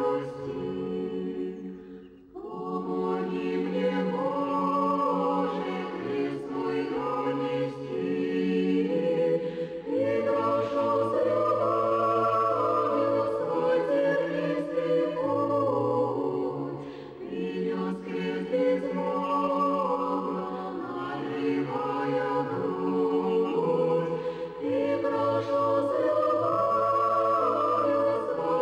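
Unaccompanied choir singing slow, sustained chords in long phrases, with short breaks between phrases.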